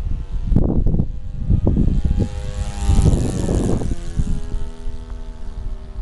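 RC model airplane's engine and propeller passing overhead: a steady buzzing drone that is loudest about halfway through and drops in pitch as the plane goes by, with wind buffeting the microphone.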